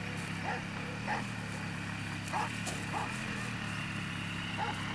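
Dog yelping and barking excitedly in short repeated calls, about one or two a second, over a steady motor drone.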